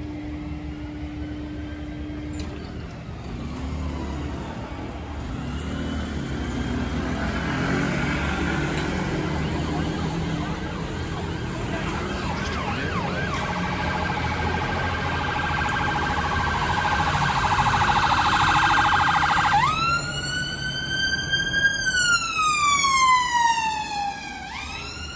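Ambulance siren drawing closer and growing louder, first on a fast yelp, then switching about 20 seconds in to a slow wail that rises and falls. Road traffic rumbles underneath.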